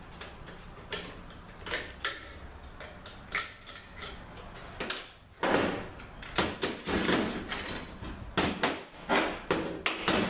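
Metal transmission parts clicking, clanking and scraping as a THM-125C automatic transmission's forward clutch drum is opened up and its parts handled. Separate sharp clicks come first, then denser clattering and scraping through the second half.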